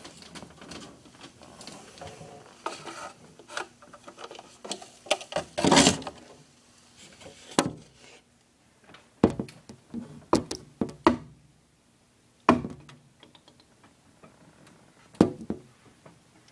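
Handling noise: scattered clicks, knocks and rubbing close to the microphone as a phone is moved about, with a longer rustle about six seconds in and a few sharper knocks after it.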